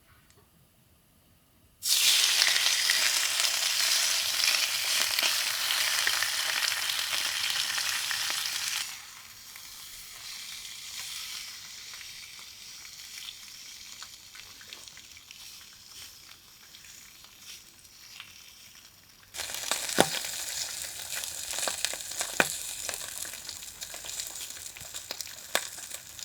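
Food sizzling in a hot frying pan, starting suddenly about two seconds in with a loud hiss. It settles to a softer sizzle with crackles about nine seconds in, and grows louder again with sharp pops near the end.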